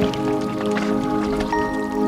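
Background music: sustained, layered held notes with a slowly shifting chord.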